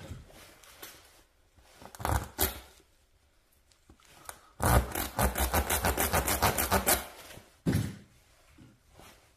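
Rapid scraping at a car tyre's tread during a puncture plug repair: a few short rubs about two seconds in, then fast even strokes, several a second, for about two and a half seconds, and one more scrape near the end.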